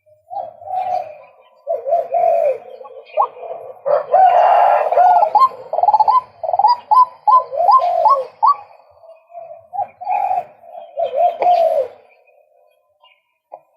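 Male white-breasted waterhen calling loudly: a series of repeated calls, with a quick run of rising notes in the middle.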